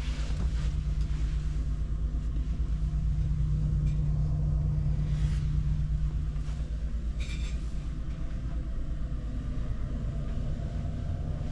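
Steady low rumble and hum of a ferry's engines and machinery, heard inside a cabin, with a few faint rustles on top.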